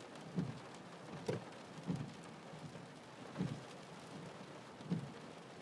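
Rain hissing on a car's windscreen and roof, heard from inside the car, with the windscreen wipers sweeping. A dull thud comes about every one and a half seconds as the wipers reach the end of each stroke.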